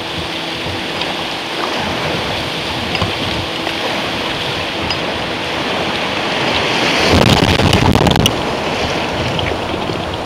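River water rushing steadily over a shallow rocky riffle, small rapids running white. About seven seconds in, a louder, rougher rumbling burst lasts about a second.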